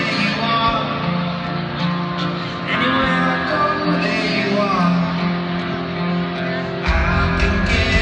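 Live band heard through stadium loudspeakers: a man singing over an acoustic guitar, with a heavy low beat of drums and bass coming in about seven seconds in.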